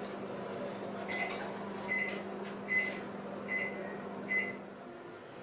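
Oven running with a steady hum, then its timer beeping five times, evenly spaced, to signal the end of the baking time; the hum stops near the end.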